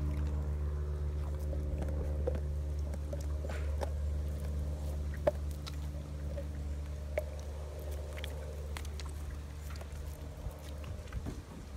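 A large dog gnawing a raw bone held in a hand, its teeth scraping and clicking on the bone at irregular moments. Under it runs a steady low hum that fades near the end.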